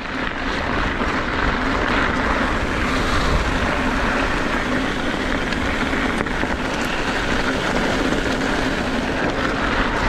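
Trek Fuel EX 7 mountain bike rolling at speed on a dirt trail: a steady rush of tyre noise and wind on the GoPro's microphone, with a low, even buzz running underneath.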